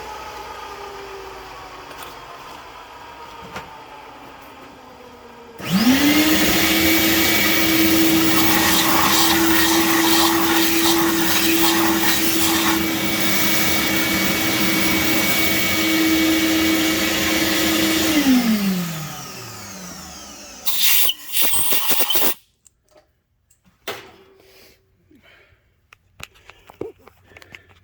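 A vacuum cleaner motor, likely a shop vacuum clearing tapping chips from the freshly threaded hole, switches on about six seconds in, runs steadily for about twelve seconds and winds down, with two short bursts of the same noise shortly after. A fainter machine hum comes before it.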